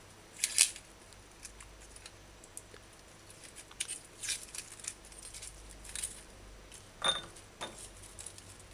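Dry brown onion skin crackling and rustling as it is peeled off with a small knife, in a few short, scattered bursts over a faint low hum.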